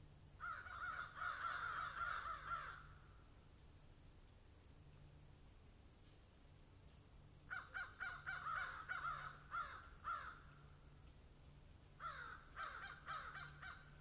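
Crow cawing in three bouts of rapid, repeated harsh caws, with pauses of several seconds between the bouts.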